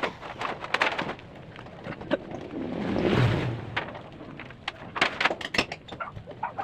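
Irregular knocks and clanks from work on long-span metal roofing sheets, with a louder rushing swell about halfway through.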